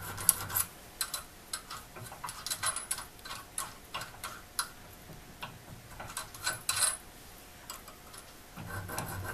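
Short, light strokes of a small safe-edge file on the damaged Acme threads of a steel vise screw, heard as irregular ticks and scrapes, several a second.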